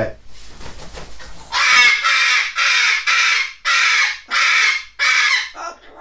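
A cockatoo screaming: a run of about seven loud, harsh calls, each about half a second long, starting about a second and a half in.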